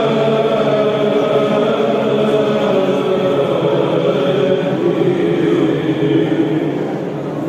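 Byzantine chant sung by a small group of chanters, holding long, slowly moving melodic notes.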